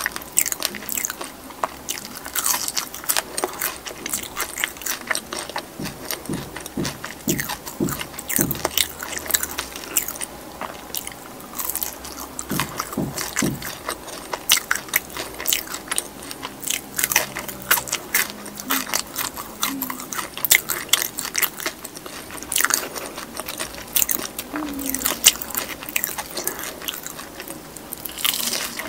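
Close-miked eating sounds: crisp bites and chewing of a fried wedge potato, with many sharp crunches throughout. Near the end comes a bite into a soy-sauce fried chicken drumstick.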